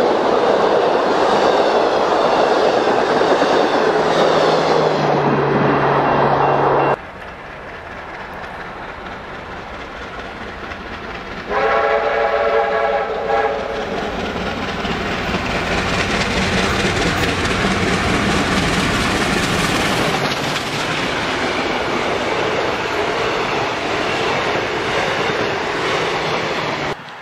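High-speed steam-hauled passenger train: carriages rush past with loud wheel and rail noise, which cuts off suddenly. After a quieter stretch a multi-note chime whistle sounds for about two seconds, then the train runs through at speed, its wheel and rail noise filling the rest until it cuts off just before the end.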